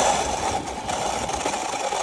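1/10-scale RC car driving, a steady whir of its motor and drivetrain with running noise from the rough ground.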